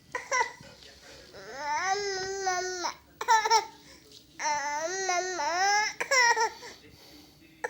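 Baby boy babbling in a run of about five drawn-out, high-pitched vocal sounds with wavering pitch, broken by short pauses.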